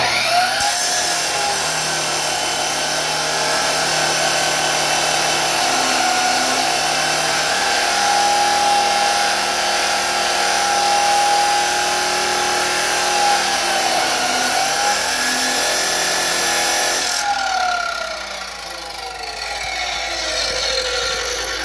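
Drillmaster 14-inch metal chop saw with its stock abrasive cutoff wheel starting up and grinding into a steel bar, a steady whine over a harsh grinding noise for about seventeen seconds. It is then switched off and winds down with a falling whine. The stock wheel is struggling to cut the steel, mostly just throwing sparks.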